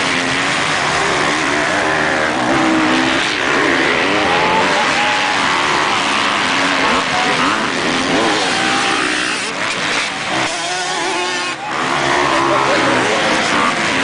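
Several motocross bikes racing, their engines revving up and down with overlapping rising and falling pitch as riders accelerate and shift.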